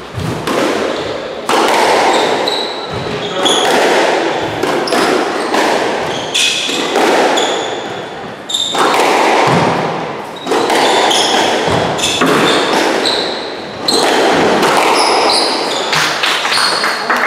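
Squash rally: the ball cracks off the rackets and the court walls about once every second or so, each hit echoing in the enclosed court, with shoes squeaking on the hardwood floor between the shots.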